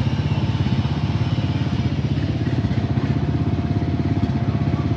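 ATV engine running steadily with a rapid, even low putter.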